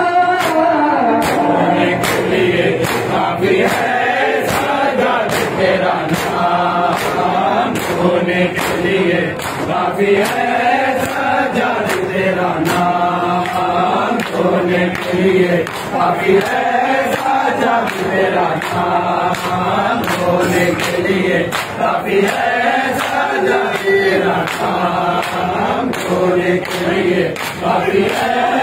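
Crowd of men singing a noha in unison, with a steady beat of open-hand slaps on bare chests (matam) keeping time.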